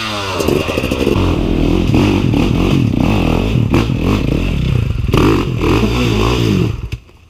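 Enduro dirt bike engine revving up and down in repeated bursts, with a few sharp knocks from the bike working over rough ground. The sound drops out abruptly near the end.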